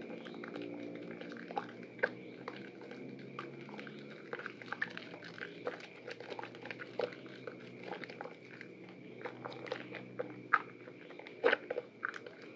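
Hands squeezing and kneading a soaked, softened bar of white soap in sudsy water: wet squelching with irregular sticky crackles and pops, the loudest squishes coming about ten and eleven seconds in.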